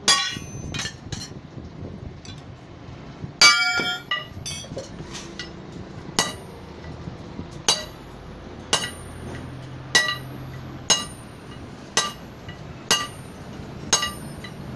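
A sledgehammer striking a hot steel bar held with tongs on a small anvil, each blow a sharp ringing clang. A few uneven blows come in the first seconds, one of them much louder, then the strikes settle into a steady rhythm of about one a second.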